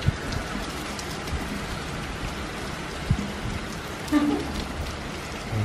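Heavy rain falling steadily, an even hiss of drops on stone and grass, with a few short dull thumps over it.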